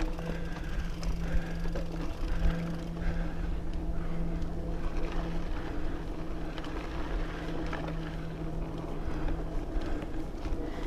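Specialized Camber Comp 650b mountain bike rolling along a rocky dirt singletrack: tyre and trail rumble with scattered knocks and rattles from the bike. Under it runs a steady low hum that drops out briefly a few times.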